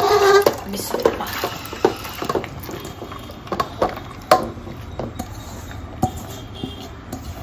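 Soaked wheat and black-eyed peas being tipped and scraped by hand from a metal bowl into a pressure cooker: wet grains sliding and falling into the pot, with scattered knocks of metal on metal, the loudest about four seconds in.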